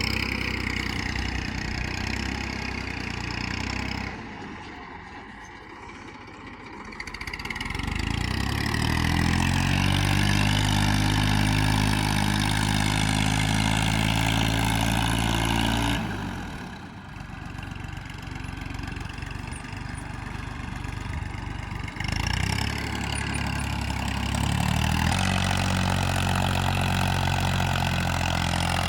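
Engines of heavy farm and construction vehicles running. The sound changes abruptly several times, and about eight seconds in an engine revs up to a steady higher pitch.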